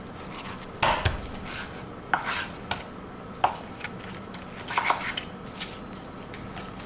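Kitchen knife cutting raw chicken breast into small pieces on a thick round wooden chopping board, the blade knocking on the wood about six times at uneven intervals.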